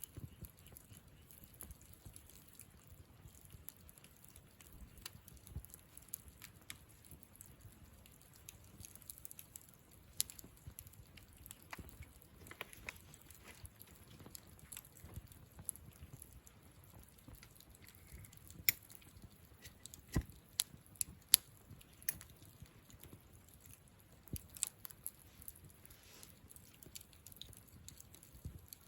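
Wood campfire crackling: scattered small pops and ticks over a soft low hiss of burning, with a few louder snaps close together about two-thirds of the way through.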